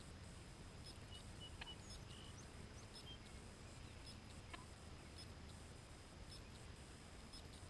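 Near silence: faint outdoor ambience with a few faint, short bird chirps in the first few seconds and a couple of soft clicks.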